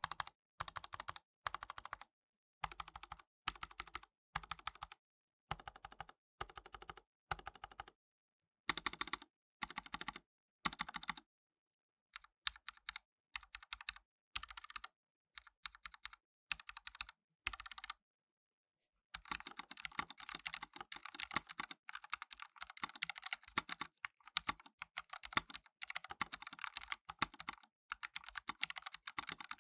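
Typing on a NuPhy Air75 low-profile mechanical keyboard with pre-lubed Gateron low-profile Red linear switches. Short runs of keystrokes with brief pauses between them, then continuous fast typing from about two-thirds of the way in.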